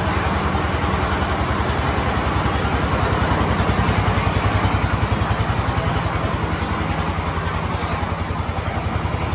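A small engine running steadily at idle, with an even, fast pulsing beat.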